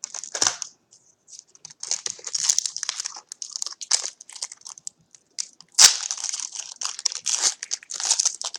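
Foil trading card pack wrapper being crinkled and torn open, irregular crisp rustling with a sharp loud crackle about six seconds in.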